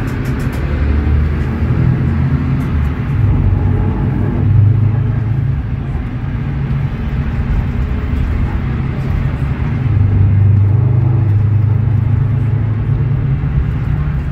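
Mercedes-Benz OM936LA Bluetec6 inline-six diesel of an O500U city bus, heard from inside the passenger cabin while the bus drives. The engine's low drone rises and falls in pitch several times as it pulls and eases off.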